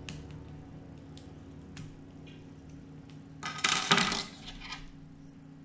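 Lock picks working in a clear practice lock: scattered small metallic clicks, then a brief loud rattling clatter of metal on metal a little past the middle, followed by a few more clicks.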